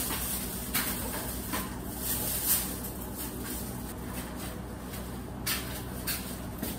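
Plastic garbage bag rustling and footsteps on a hard floor as the bag is carried in and set down: a few short rustles and scuffs over a steady low hum.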